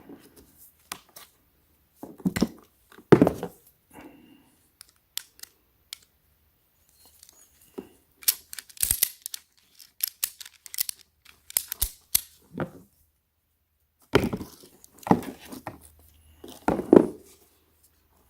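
Handling noise from a ratchet tie-down strap and its packaging: irregular rustling and scraping, with a run of sharp clicks and knocks in the middle.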